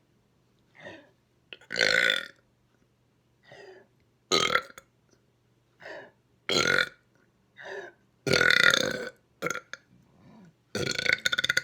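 A person burping again and again, bringing up trapped air: about five big, loud burps, the longest about two-thirds of the way through, with shorter, quieter bursts between them.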